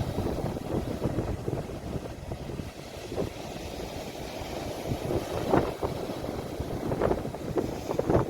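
Sea waves washing at the shore, a steady low rushing noise picked up on a phone's microphone with some wind noise, with a few brief louder surges in the second half.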